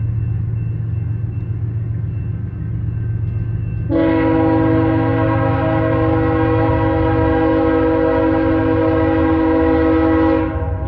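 Approaching BNSF diesel freight locomotive's air horn sounding one long, steady blast, a chord of several tones, starting about four seconds in and cutting off shortly before the end, over a low rumble.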